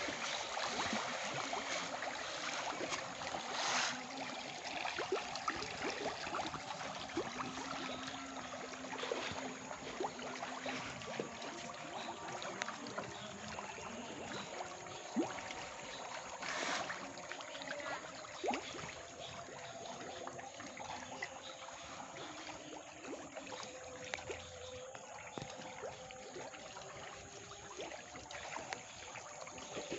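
Tilapia churning and splashing at the surface of a floating net cage as feed is thrown in: a steady wash of many small splashes, with a couple of louder ones.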